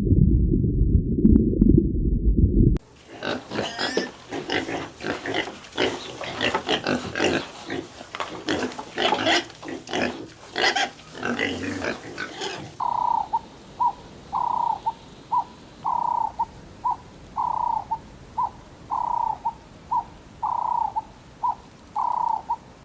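Farm animal calls in three edited-together clips. First comes a loud low-pitched sound, then a dense run of short, harsh calls. After about thirteen seconds there is an evenly spaced series of short calls, roughly one every two-thirds of a second.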